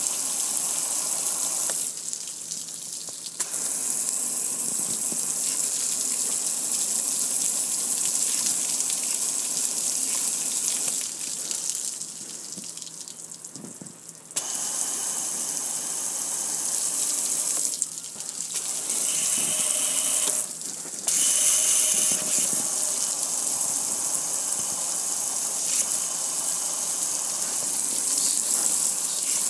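Spray of water hissing and splashing onto the lid and front panel of a black gas grill, running off in streams. The spray cuts out briefly a few times, once for about three seconds midway.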